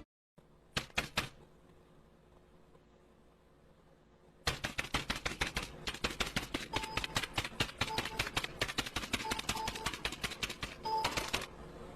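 Keys clacking: a few single clicks about a second in, then from the middle onward a quick, uneven run of keystrokes, several a second, like fast typing.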